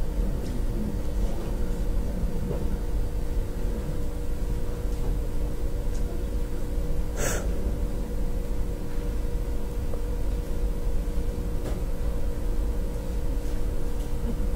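Room tone of a lecture hall: a steady low rumble with a faint constant hum, and one short click about halfway through.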